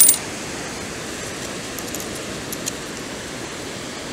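A perforated metal beach sand scoop clatters sharply once as it is shaken, then a steady rushing hiss of outdoor background noise runs on, with a few faint light ticks in the middle.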